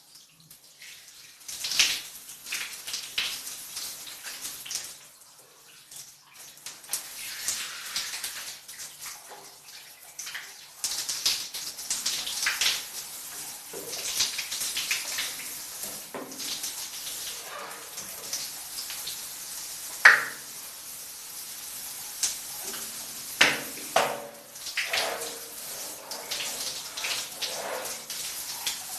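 Shower water falling and splashing unevenly as someone washes under it, rising and falling in irregular surges, with a sharp splash about two-thirds of the way through.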